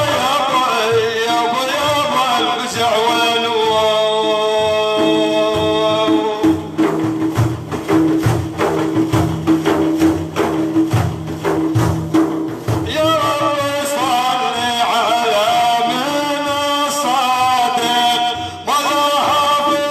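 Arabic devotional praise song (madih) sung by a solo male voice over rhythmic hand-drum percussion. The singing drops out for a stretch of percussion alone from about a third of the way in, and comes back a little past the middle.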